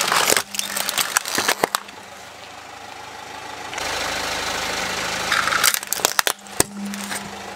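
Plastic toys cracking and snapping under a slowly rolling car tyre on concrete, with a burst of sharp cracks in the first second and a half and another about six seconds in. The car's engine runs steadily underneath.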